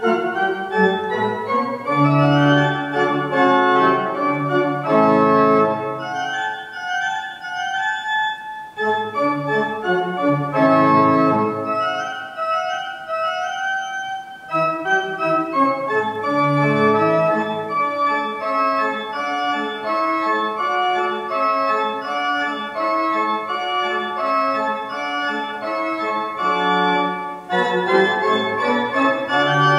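Church pipe organ playing a piece of sustained chords with a moving melody, with short breaks between phrases.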